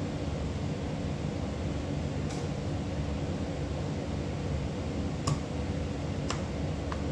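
A few light clicks and taps of hands working plastic and rubber parts into a Stihl MS 250 chainsaw's rear handle housing. Under them runs a steady low hum.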